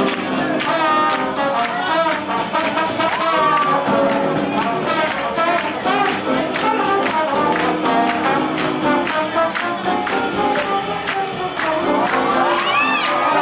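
Swing jazz with brass horns over a steady drum beat, played for Lindy hop dancing. Near the end the crowd starts to whoop and cheer.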